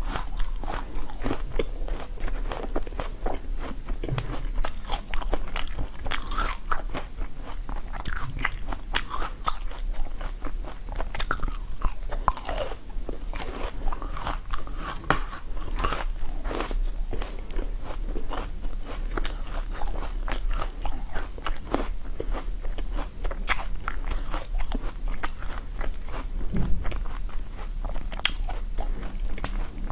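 Close-miked eating: a person biting and chewing small orange pieces, a steady run of crisp little clicks and crunches.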